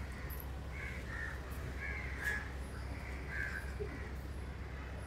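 A bird giving several short, harsh calls at irregular intervals, over a low steady rumble.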